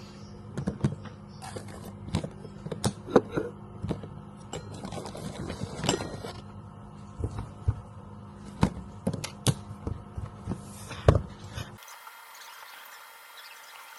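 Irregular sharp knocks and clicks, a dozen or so, at uneven spacing, over a low steady background. They stop abruptly near the end, leaving a faint steady hum.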